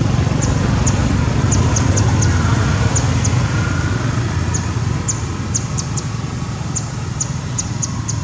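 Steady low outdoor rumble, with many faint, short, high ticks scattered irregularly through it.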